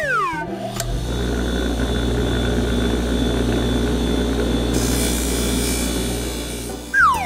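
Cartoon car-wash brush machine running with a steady mechanical whirr and low hum while scrubbing; a hiss joins in about five seconds in. A quick falling whistle sounds at the start and again near the end.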